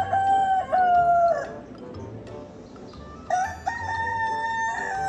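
A rooster crowing twice, cock-a-doodle-doo. The second crow starts about three seconds in and is long, falling in pitch at its end.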